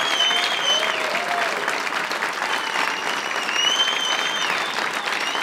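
Comedy-club audience applauding steadily as a comedian takes the stage. A high whistling tone rises over the clapping twice, near the start and again about three seconds in.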